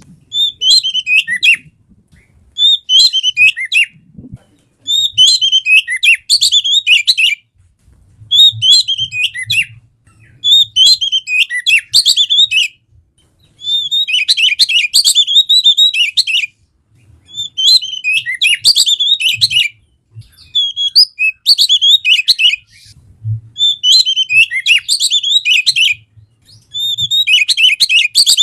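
Oriental magpie-robin (kacer) in full song: loud, varied whistled phrases of one to three seconds, repeated about ten times with short pauses between them. This is the kind of lively 'gacor' song played to draw a reluctant caged kacer into singing.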